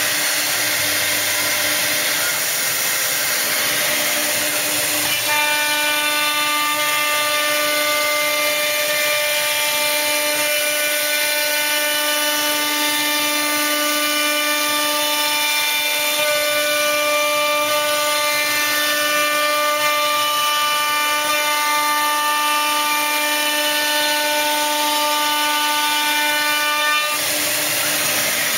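1325A woodworking CNC router running with a steady machine noise. The spindle's steady whine sets in about five seconds in and cuts off about a second and a half before the end.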